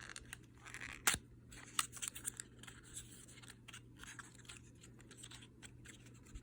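Small lipstick packaging being handled and opened by hand: scattered light clicks, scratches and rustles, with one sharper click about a second in.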